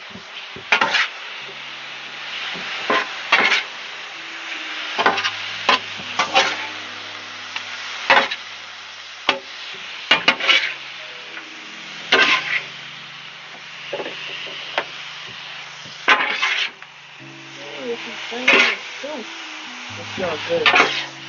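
Peppers and onions sizzling in a hot pan while a spatula stirs and scrapes them, with sharp scrapes every second or two over a steady sizzle. Background music with low held notes underneath.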